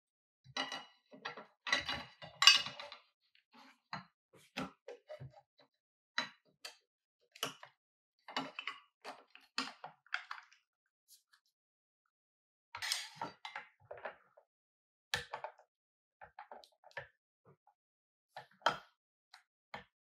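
Scattered clicks, knocks and clinks of an airsoft rifle being handled on a tabletop, with its metal front handguard off while a battery is fitted inside. The handling is busiest in the first few seconds and again about thirteen seconds in.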